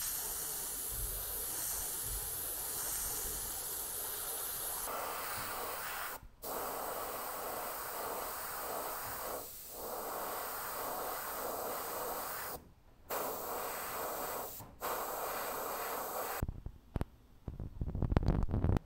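Airbrush spraying paint: a steady hiss of air, broken by a few short pauses as the trigger is let off, stopping about sixteen seconds in. Irregular handling knocks follow near the end.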